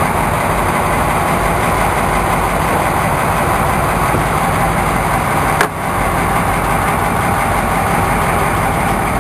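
Fishing boat's engine running steadily, a loud, even mechanical noise, with a single sharp click a little past halfway.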